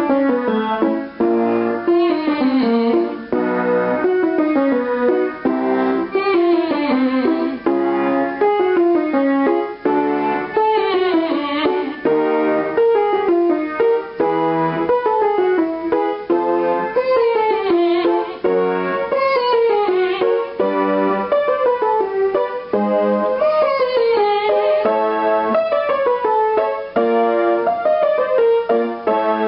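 Piano keyboard playing a vocal warm-up accompaniment: short descending scale runs repeated about every two seconds, each set starting a little higher as it moves up through the female range.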